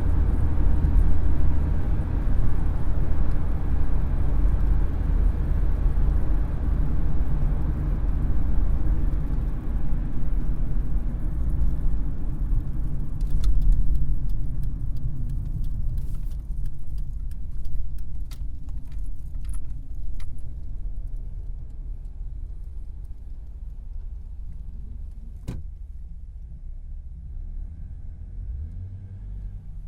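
Car engine and road rumble heard from inside the cabin, a loud low drone that thins out and dies away over the second half. Near the middle a scatter of light clicks comes in, then one sharp click.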